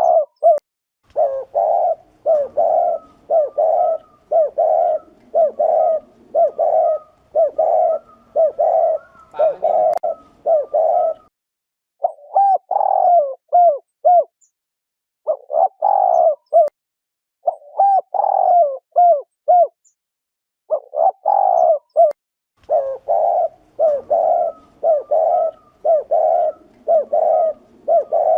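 Spotted dove (chim cu gáy) giving its 'gù' courtship coo: short loud coo notes repeated about two a second in runs, broken by a few brief pauses. A call used to stimulate male doves and to lure them to traps.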